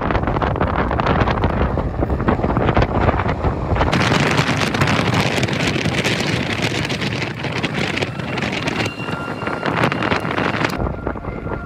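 Wind rushing and buffeting over the microphone of a rider on a fast-moving electric bike. Near the end a faint steady high tone joins it.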